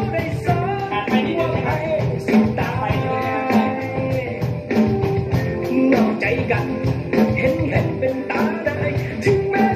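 A rock-style pop song playing with a singing voice over a steady drum beat and band backing.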